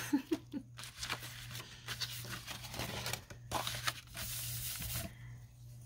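Paper and kraft cardstock rustling and sliding on a craft desk as sheets are handled and smoothed flat, with a longer sliding rush about four seconds in. A low steady hum runs underneath.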